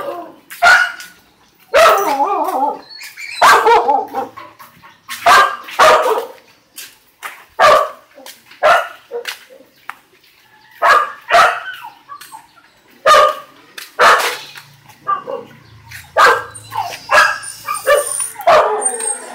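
Dogs barking repeatedly: about twenty short, loud barks, irregularly spaced roughly a second apart.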